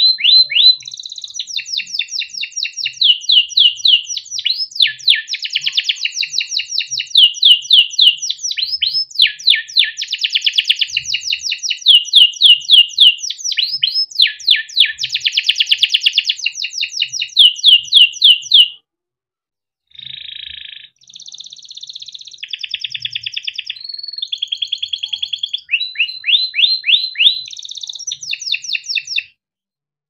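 Young canary singing a long, unbroken song: fast runs of repeated falling chirps and rolling trills. It breaks off for about a second two-thirds of the way in, resumes in shorter phrases, and stops shortly before the end.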